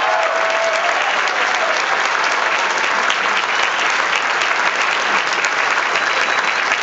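A large audience applauding, with steady dense clapping.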